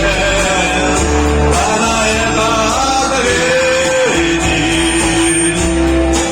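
A rock song sung over guitar accompaniment, with a long held sung note in the second half.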